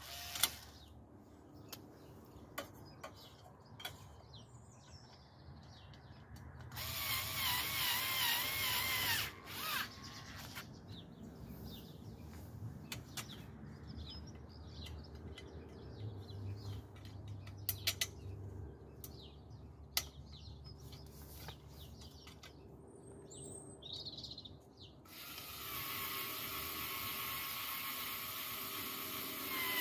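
Small cordless power screwdriver running in two bursts, one of about three seconds and a longer one near the end, its motor whine wavering in pitch as it drives under load. Between the bursts come scattered clicks and knocks of handling.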